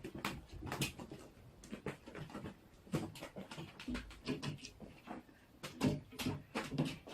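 Quiet, irregular taps and knocks, several a second and uneven in strength, in a small room.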